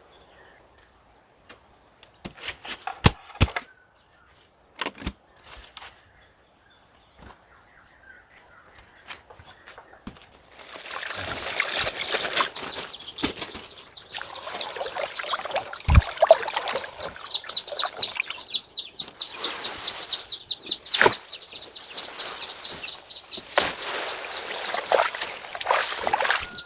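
Steady high insect buzzing with a few scattered clicks, then from about ten seconds in a dense, irregular rustling and flapping with many sharp clicks.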